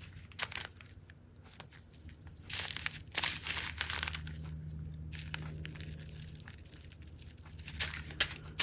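Small plastic bags of diamond-painting drills crinkling as they are handled, in irregular bursts, busiest about three seconds in and again near the end.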